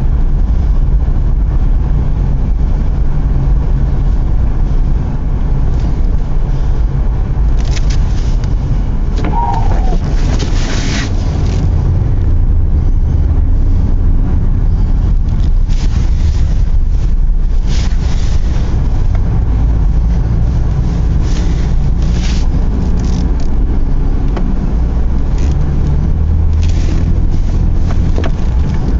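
Car driving, a loud steady low rumble of engine and road noise, with short hissing gusts every few seconds.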